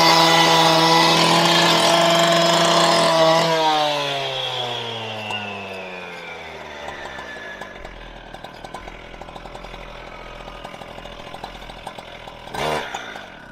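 Handheld power disc cutter running flat out with a steady high whine, then released about three and a half seconds in and spinning down, its pitch falling away over several seconds. A short knock comes near the end.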